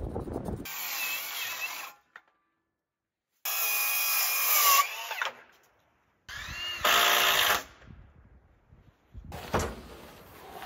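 Circular saw cutting a board in three short bursts, the motor whine dropping in pitch as the blade winds down after the second cut. A single knock near the end.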